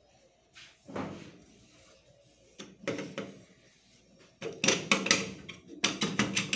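Hard objects knocking and clattering as they are handled: a few single knocks, then from about four and a half seconds in a quick run of sharp clatters with a little ringing.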